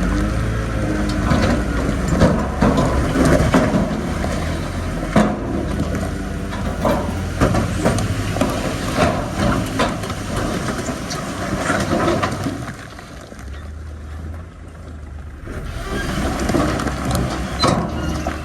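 Heavy diesel earthmoving machinery working: a steady low engine drone with scattered knocks and clatter of rock and metal. It eases off for a few seconds past the middle, then builds again.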